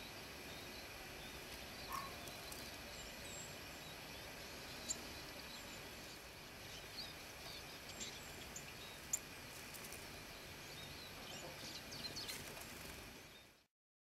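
Outdoor ambience: a steady faint hiss with short, high bird chirps scattered through and a few sharp clicks. The sound cuts off suddenly near the end.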